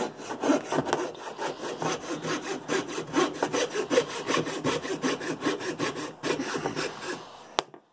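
Coping saw cutting through a pine block in quick, even back-and-forth strokes, stopping near the end with a sharp click.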